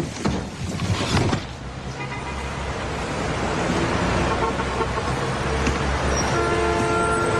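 Footsteps on a hard floor for the first second or so, then a steady rumble of city traffic building up. Held music notes come in over it in the second half.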